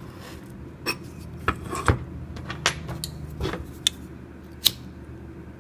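A steel knife cutting paracord on a plastic cutting board: a series of about seven sharp, irregular clicks and knocks as the blade meets the board and the knife is handled.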